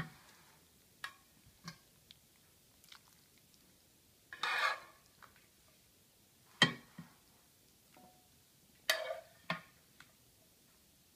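Scattered light knocks and clicks, with a short rustle about four and a half seconds in and the sharpest knocks near six and a half and nine seconds. These are small handling sounds around the bowls on a kitchen counter.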